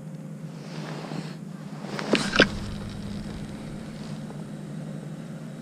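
A steady low engine hum, such as a boat motor running in the harbour. Two sharp knocks, close together, come about two seconds in.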